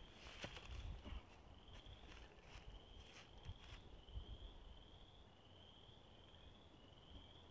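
Near silence, with a faint high insect chirp repeating about twice a second. There are a few faint knocks in the first few seconds as the 2x4 boards are handled.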